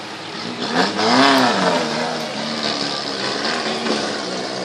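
Off-road 4x4's engine revving hard as it climbs out of a muddy river up a rocky bank, rising and falling in pitch about a second in, then pulling steadily.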